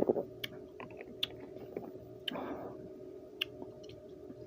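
A swallow of juice from a bottle right at the start, then scattered wet lip smacks and tongue clicks as the drink is tasted, with a short breathy sound about two and a half seconds in.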